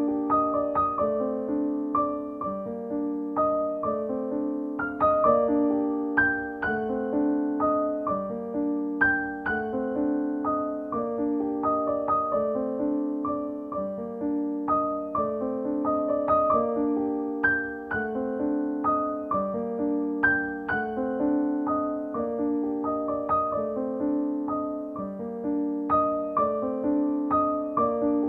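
Background piano music: a melody of struck notes that ring and fade, over a repeating lower accompaniment.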